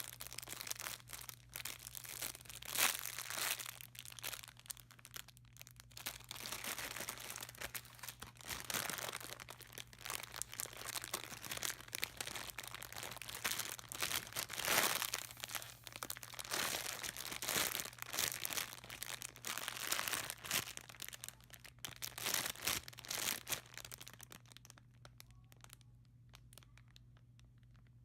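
Squishy toy packaging crinkling and rustling as it is handled, in irregular bursts of crackle, dying away a few seconds before the end.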